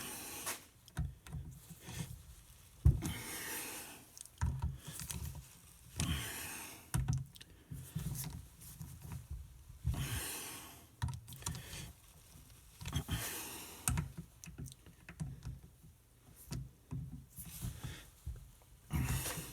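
Irregular light metal clicks and knocks, with short rasping bursts every few seconds, from hand tools tightening the cam cover screws.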